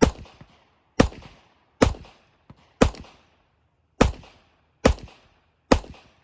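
Glock 40 10mm pistol firing seven shots in steady succession, about one a second, each shot a sharp crack with a short echoing tail. A faint click sounds between the third and fourth shots.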